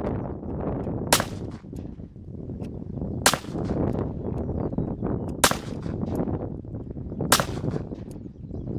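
COP .357 four-barrel derringer firing four single shots, one about every two seconds, which empties all four barrels.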